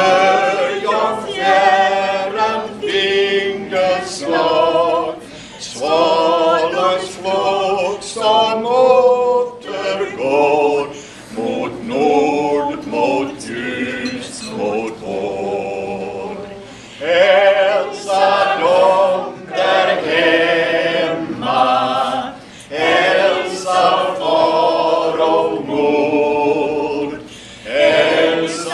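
A small mixed group of men and women singing together a cappella, unaccompanied voices in phrases a few seconds long with short breaks for breath between them.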